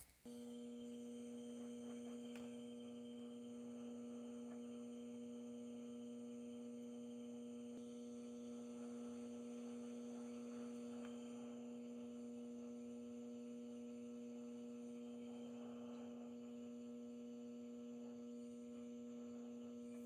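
Faint, steady hum from a hot air rework station's blower: one constant low tone with overtones, unchanging throughout. The station is reflowing the solder under a replacement micro SD connector.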